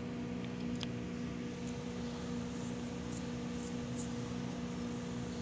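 Steady background hum of a running machine, with a few even tones and no change in level; a couple of faint ticks under a second in.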